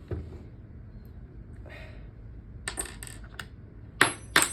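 Small metal parts and an Allen key clicking and clinking as the rifle is being taken apart, with a few scattered light clicks and then a louder run of sharp clinks near the end, one ringing briefly.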